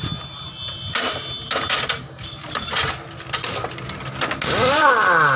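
Pneumatic impact wrench on a truck wheel nut: scattered clicks and clatter of the tool being set on the nut, then about four seconds in the wrench fires with a loud air hiss and a motor pitch that climbs and then drops.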